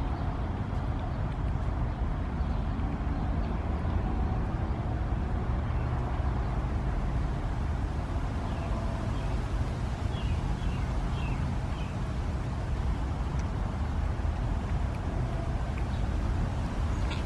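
Steady low outdoor rumble, with a few faint high chirps about halfway through.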